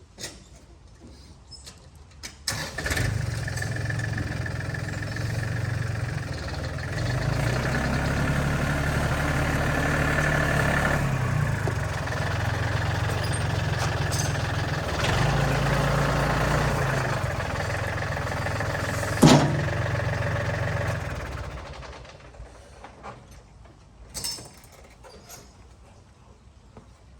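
Small diesel engine starting about two and a half seconds in, then running with its speed stepping up and down several times before fading away about 21 seconds in. A single sharp knock about 19 seconds in.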